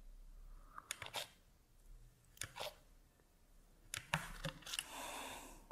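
Faint clicks and taps of a thin slicer blade cutting a polymer clay cane into thin slices on a ceramic tile, in small scattered clusters, with a brief soft rustle near the end.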